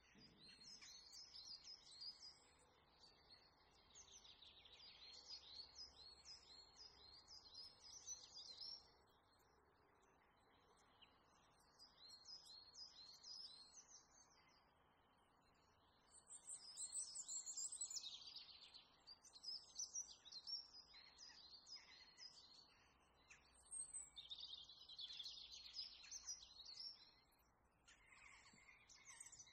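Faint songbirds singing and chirping: phrases of quick repeated high notes lasting a few seconds each, broken by short pauses, over a low steady hiss.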